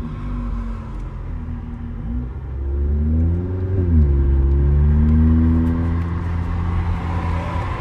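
Engine of a tuned (Stage 2+) Seat León FR accelerating, heard from inside the cabin. The revs climb, drop sharply at an upshift about four seconds in, then climb again and level off.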